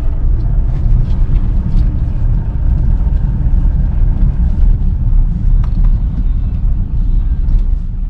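Steady low rumble of a car's engine and road noise, heard from inside the cabin as the car moves slowly.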